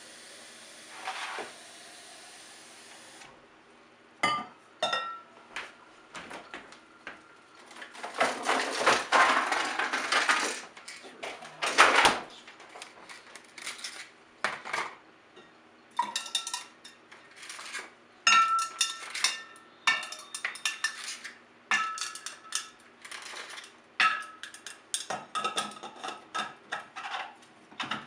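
Kitchen tap water running into a stainless steel water bottle for about three seconds, then ice cubes being worked out of a tray and dropped into the steel bottle: many sharp clinks and clatters, some ringing briefly in the metal, with a longer stretch of clatter in the middle.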